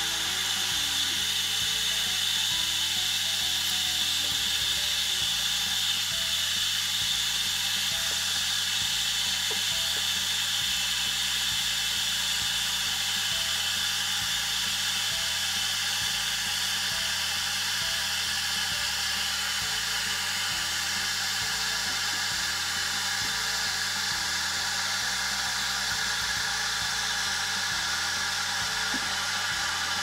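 Redmond smart electric kettle heating mulled wine toward 85 °C, short of the boil: a steady hissing whine that holds level without a break.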